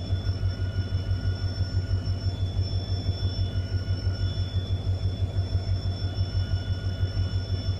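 Train locomotive running, heard from inside the driver's cab: a steady low drone with a fast, regular pulse and a few faint, steady high whines above it.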